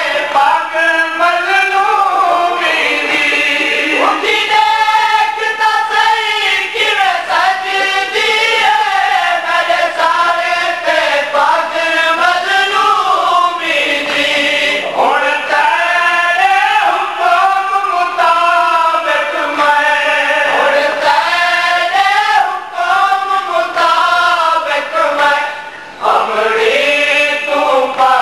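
A group of men chanting a mournful lament (noha) together, their voices rising and falling in long sung phrases.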